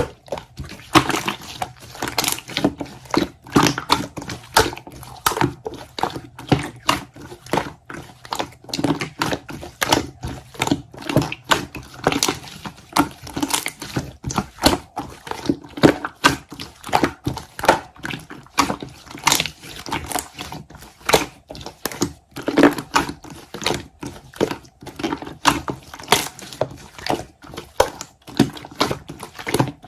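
Slime being squished and pressed by hand, making an irregular run of sticky clicks and pops, several a second.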